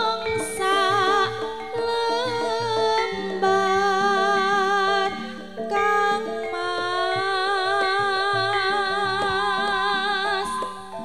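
Javanese gamelan music (a gending): a woman's voice sings in the sindhen style with a wavering vibrato over ringing bronze metallophones and gong-chimes.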